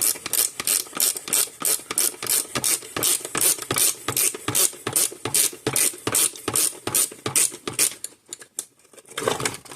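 Ratcheting hand tool clicking steadily, about four to five clicks a second, as a fastener is turned out; the clicking stops about eight seconds in.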